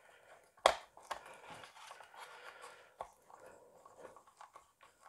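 Small screwdriver driving tiny self-tapping screws into plastic model parts: a sharp click about two-thirds of a second in, faint scraping and creaking as the screw turns, and another click about three seconds in.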